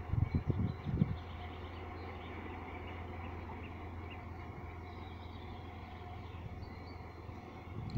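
Distant ChME3 diesel shunting locomotive's engine, a low steady drone as it moves away down the line. Wind buffets the microphone in the first second, and faint bird chirps are heard.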